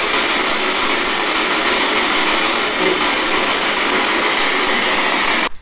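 Loud, steady static hiss from a spirit box, a radio that sweeps through stations and is played through an external speaker. It cuts off suddenly near the end.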